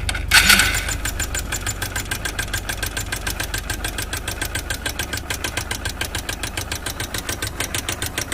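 Motorcycle's single-cylinder four-stroke engine just after starting: a short rev blip about half a second in, then idling with an even, rapid beat. The engine is being run with the cylinder-head oil-check bolt out, to see whether oil now reaches the head after a clogged oil-pump strainer was cleaned.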